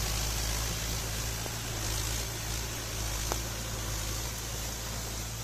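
Mahindra Yuvo 415 DI tractor's four-cylinder diesel engine running steadily under load as its Maschio rotavator churns through waterlogged mud, with an even hiss over it.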